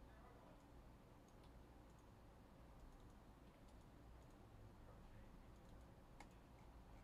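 Near silence: low room hum with a few faint, scattered clicks.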